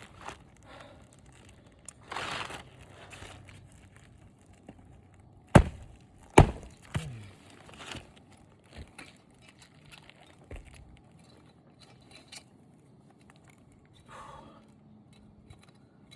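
Scattered light taps and rustling with two sharp, loud knocks about a second apart near the middle.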